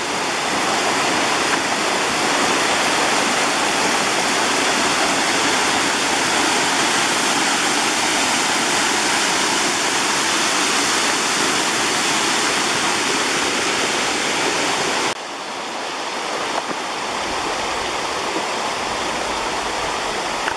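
Small waterfall, about 5 to 8 metres high, pouring over rock ledges: a steady, loud rush of falling water. About fifteen seconds in it cuts suddenly to a quieter rush of flowing water.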